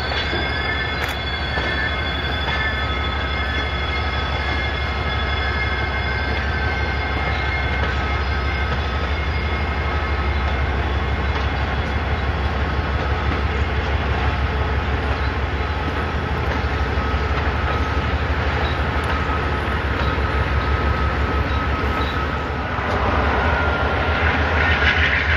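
Amtrak passenger train with a P42DC diesel locomotive rolling slowly over a curved steel trestle. The wheel flanges squeal in steady high tones on the curve, fading out over the first half, over the low, steady rumble of the locomotive, which weakens about two-thirds of the way through as it moves off. A broader, louder noise comes in near the end.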